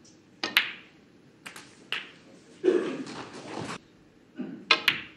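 Snooker balls clicking: the cue tip striking the cue ball and the balls knocking together, several separate sharp clicks spread across a few seconds.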